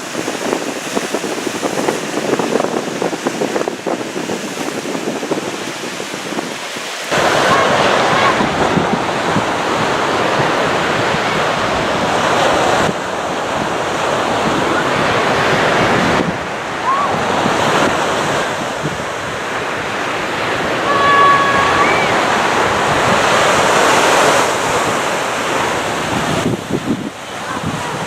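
Surf washing on a beach, with wind buffeting the microphone. It gets louder and fuller all at once about seven seconds in, and shifts abruptly a few more times as the shots change.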